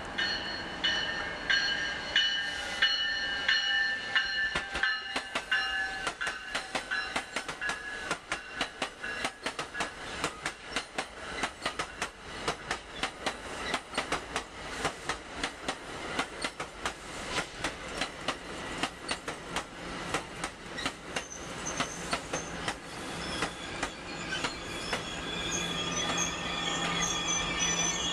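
New Jersey Transit multilevel push-pull train passing: the wheels click steadily over the rail joints, with high steady ringing tones in the first several seconds. Near the end the electric locomotive pushing at the rear goes by with a steady whine and hum.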